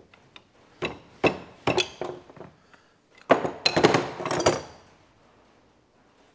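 Metal hand tools knocking and clinking: an adjustable wrench worked on the relief valve cap of a tractor power steering pump and set down among other spanners on the bench. A few separate knocks come first, then a quick, louder run of clinks about halfway through.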